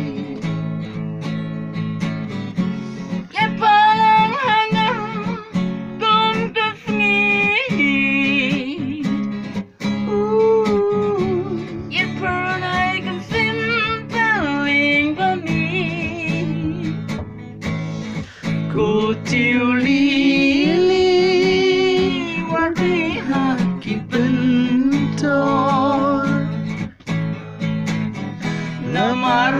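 Live guitar music: a guitar strummed in steady chords under a high, wavering melody line played or sung in phrases.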